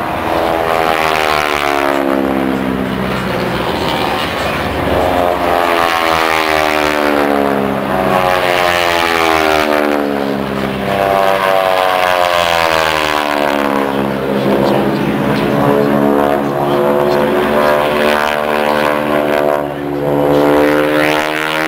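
Radial piston engines and propellers of the AeroShell team's four North American AT-6 Texans, a loud throbbing drone whose pitch rises and falls several times as the formation makes passes.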